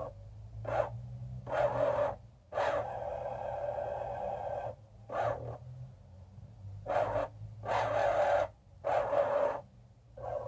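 The Excalibur Phantom Force chess computer's piece-moving mechanism whirring in a series of stop-start runs, most short and one about two seconds long, as it slides pieces across the board on its own.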